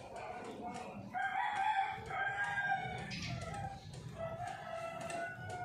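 Two long, pitched animal calls, each lasting about two seconds: one starts about a second in and the other about four seconds in, over faint background noise.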